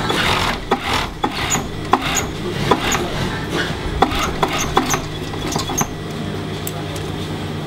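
Industrial cylinder-bed sewing machine hemming a T-shirt: a steady motor hum under irregular sharp clicks and ticks, which thin out after about six seconds.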